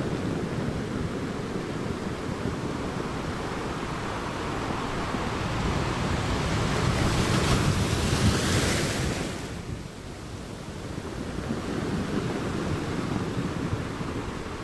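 Ocean waves breaking on a shore: the wash swells to a loud, hissing crash about eight or nine seconds in, drops away suddenly, then builds again with the next wave.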